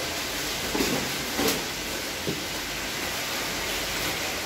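Newspaper rustling and crinkling as it is folded by hand around a lobster, with three short crackles in the first half, over a steady background hiss.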